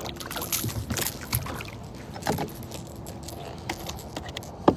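Scattered light clicks, knocks and rattles of tackle and a freshly landed small catfish being handled aboard a kayak, with one sharper knock near the end.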